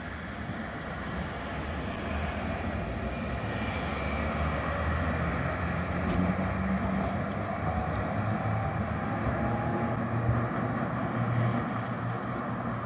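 Steady low rumble of vehicle noise with a faint hum, growing louder over the first few seconds and then holding steady.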